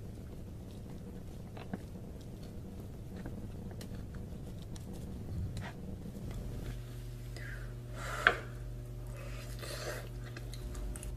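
Wooden chopsticks clicking and tapping against a wooden cutting board and a glass container as slices of rolled omelette are picked up and packed, with one sharper click about eight seconds in. A low steady hum runs underneath.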